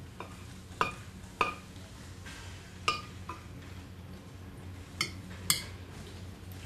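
A spoon clinking and knocking against a plate about seven times, at irregular spacing, as rice is mixed on it; a steady low hum runs underneath.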